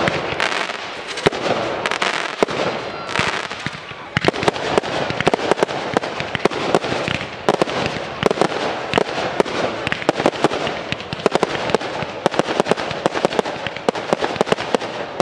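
Aerial fireworks display: a dense, continuous run of bangs and crackles as shells burst overhead, with a brief lull about four seconds in.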